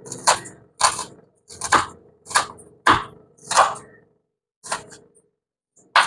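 Knife chopping on a cutting board: about nine sharp strokes roughly half a second apart, with a short pause a little past the middle.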